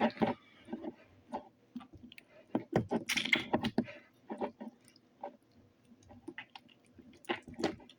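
Slime being handled and pressed into a plastic container, giving irregular sticky squelches and small wet pops, with a denser burst about three seconds in.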